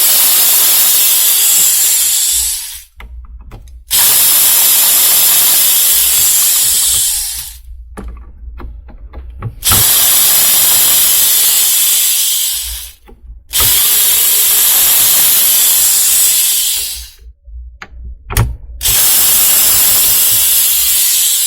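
A cordless drill-driver runs in five bursts of about three seconds each, backing out the screws that hold the cover on a quick-release bar clamp's body.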